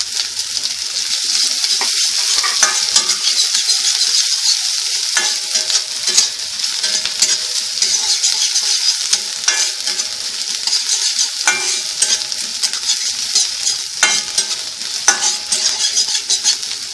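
Chopped garlic and spring onion whites sizzling steadily in hot oil in a kadhai over a high flame, with a metal spatula scraping and knocking against the pan every second or two as it stirs.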